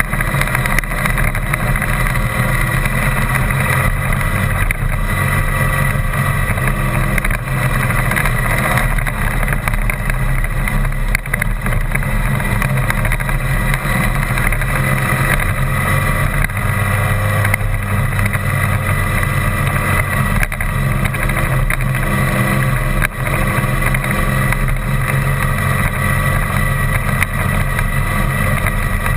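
A vehicle driving on a rough dirt and gravel track, heard through a camera mounted on it: steady engine and rolling road noise, with a deep, continuous rumble.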